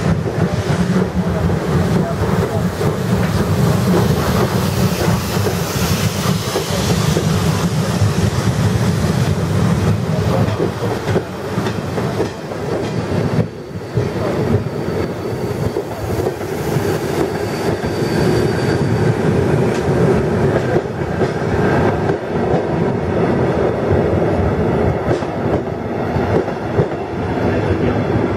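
A long train of vintage passenger coaches running past at speed, wheels knocking over the rail joints in a steady rolling rush. A faint high wheel squeal rises for a few seconds past the middle.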